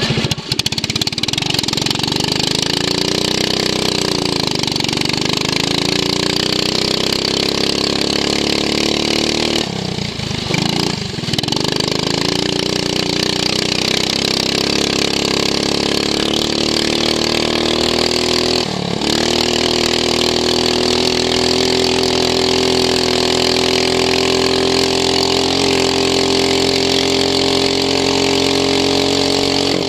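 Racing ride-on lawn mower engine running hard, heard onboard. The revs dip and recover, fall away briefly about ten seconds in and again around nineteen seconds, then climb slowly before dropping near the end.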